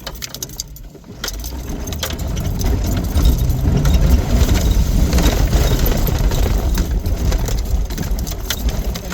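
Off-road vehicle's engine pulling under load up a steep, rough dirt hill, the rumble building over the first few seconds and then holding steady.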